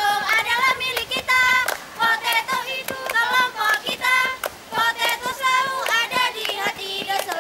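A group of children's high-pitched voices singing together, with hand clapping through it.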